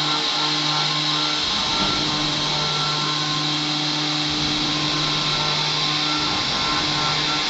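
Automatic circular metal-cutting saw sawing through a solid round steel bar: a steady hiss of the blade in the steel with a faint hum underneath.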